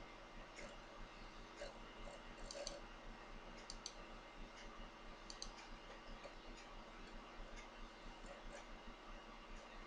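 Faint room tone with a steady low electrical hum, broken by scattered light clicks, several of them in quick pairs.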